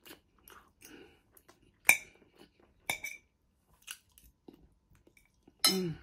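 A metal fork clinking against a bowl as rice is scooped up, with two sharp clinks about a second apart, between soft chewing and mouth sounds. A short hum of voice comes just before the end.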